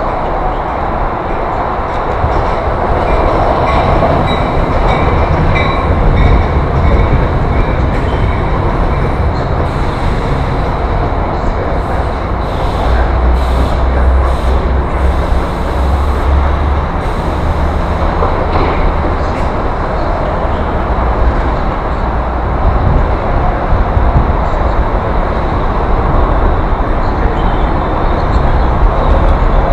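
NJ Transit multi-level commuter train rolling past on a far track: a steady rumble of wheels on rail, with a few clicks in the middle.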